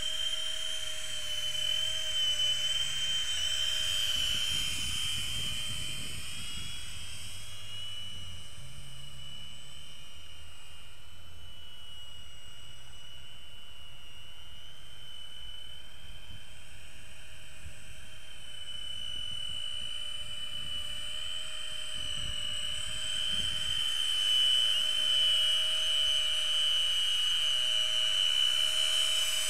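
Electric ducted fans of a tricopter drone whining in flight, their pitch sweeping up and down as the throttle changes. The sound fades while the drone is far off in the middle and grows louder again near the end as it flies close.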